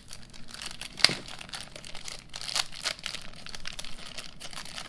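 Plastic tool packaging crinkling and crackling as it is handled, with a sharp click about a second in.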